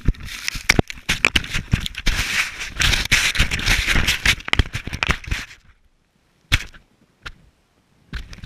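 Snow crunching and scraping against the camera, with a dense run of sharp knocks and crackles that cuts off about five and a half seconds in, followed by a few single knocks.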